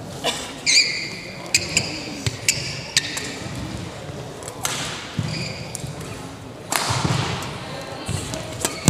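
Sports-hall ambience while a badminton court is being mopped: short high squeaks on the synthetic court floor near the start, scattered sharp clicks and knocks throughout, and a stretch of hiss about seven seconds in.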